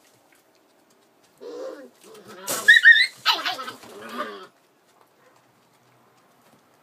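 Rough collie puppies vocalising as they play-fight: a short call about a second and a half in, then a high squeal near the middle followed by a few more yips, all over by about four and a half seconds.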